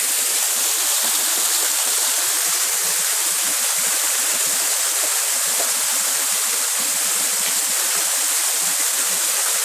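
Waterfall: water falling and rushing in a steady, even hiss.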